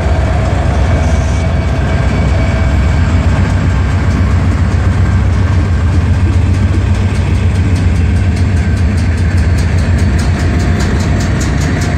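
Diesel-electric freight locomotives passing close by: a loud, steady low engine rumble with rolling wheel-on-rail noise. Faint, evenly spaced ticks come in from about halfway through.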